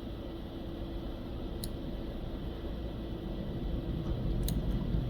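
Steady low hum and hiss of room tone, with two faint clicks, one early and one near the end.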